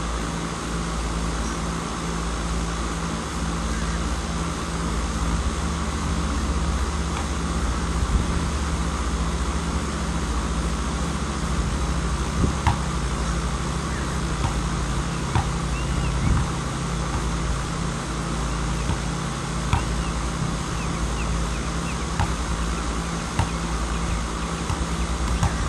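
Scattered thuds of a basketball bouncing on an outdoor court, over a steady low rumble of background noise.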